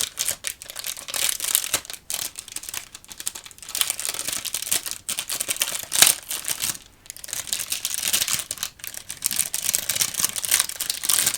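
Crinkly plastic wrapping on playing card decks being handled, a continuous irregular crackling with a sharp, louder crackle about six seconds in.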